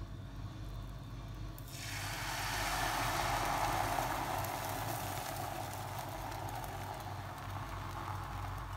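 Beaten egg poured into a hot nonstick frying pan and sizzling as it spreads. The sizzle starts about two seconds in, is loudest a second or two later, and slowly dies away near the end, over a steady low hum.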